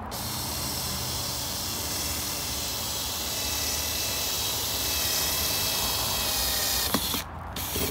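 Cordless drill running steadily as it bores a drainage hole through the plastic wall of an old water butt, its motor whining over the hiss of the bit cutting plastic. It stops suddenly about seven seconds in, just after a sharp click.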